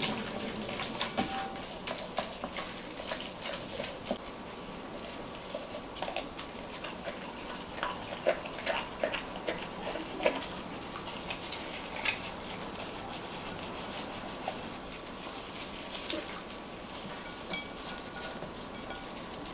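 Gloved hands squishing and rubbing whole raw pigeons in a wet marinade in a glass bowl: irregular small squelches and clicks.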